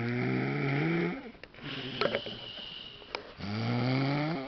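A man snoring in his sleep: two long snores, each rising slightly in pitch, the first ending about a second in and the next starting about three and a half seconds in, with a couple of faint clicks in the gap.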